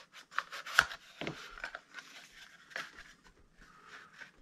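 Small cardboard box and its packing being handled and pulled apart: scraping, rustling and a few sharp taps, the loudest two about a second in.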